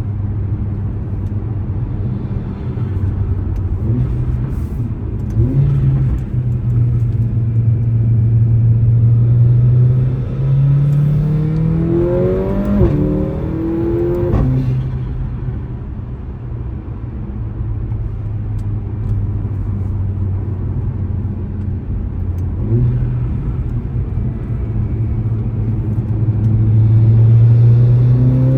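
Mercedes-AMG A45's 2.0-litre turbocharged four-cylinder engine pulling under acceleration, its note climbing in pitch twice and dropping off suddenly when the throttle is lifted, the moment that brings turbo flutter.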